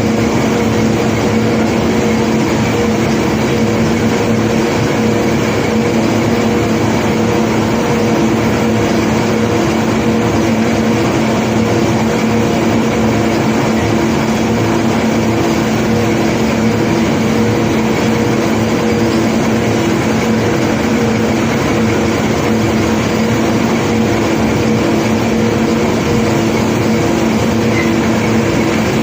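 Heavy unloading machinery running steadily: a constant loud mechanical drone with several held tones and no distinct knocks or stone impacts standing out.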